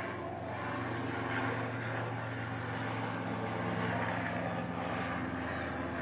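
A steady, low engine-like drone with a hiss over it.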